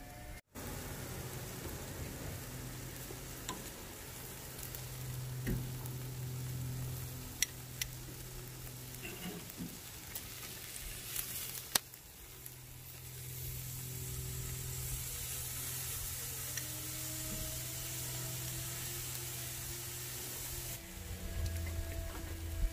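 Marinated steak sizzling on a grill over a fire: a steady hiss with a few sharp pops, one of them about twelve seconds in.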